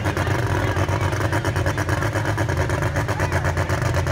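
A competition pulling tractor's engine running loud and steady, with a fast, even pulse.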